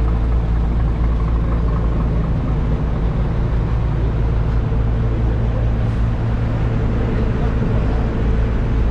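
Steady low engine hum at a constant pitch, with no revving, as of a diesel engine idling.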